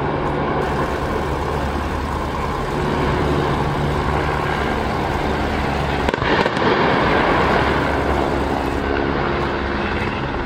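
A helicopter hovering overhead gives a steady low drone. About six seconds in comes a sudden crash and blast as a steam locomotive hits the quarry floor, followed by about two seconds of loud, noisy rushing.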